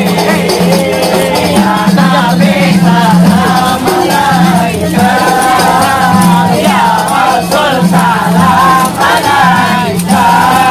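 Hadrah ensemble: several men singing together over rebana frame drums beaten in a busy, steady rhythm.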